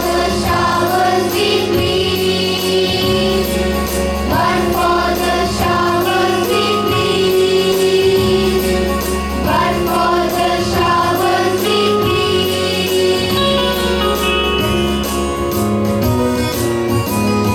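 A group of voices singing a song over steady instrumental accompaniment with a repeating bass line.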